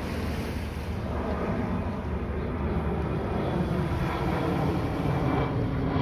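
A steady engine rumble, growing a little louder toward the end, mixed with wind noise on the microphone.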